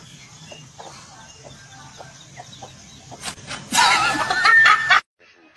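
A loud, wavering animal call lasting about a second, near the end, after a few faint scattered ticks; it cuts off suddenly.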